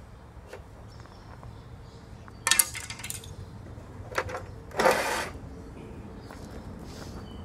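Metal clanks from handling square steel tubing at a chop saw: a sharp clang about two and a half seconds in, a light knock, then a half-second metallic clatter around five seconds in. The saw is not running.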